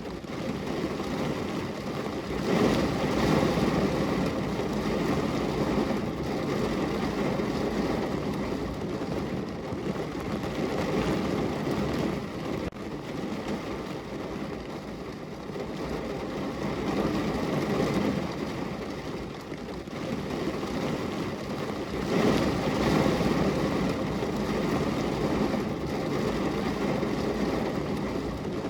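Heavy rain falling on a car's roof, heard from inside the car: a dense, even patter that swells louder about two and a half seconds in and again about twenty seconds later.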